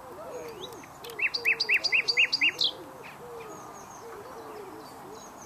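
A bird singing a quick phrase of six evenly repeated high notes, starting about a second in and lasting about a second and a half.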